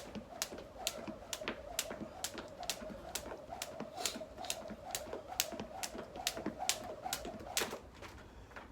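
Jump rope slapping the floor in a steady rhythm, about two to three sharp slaps a second, over a steady wavering hum.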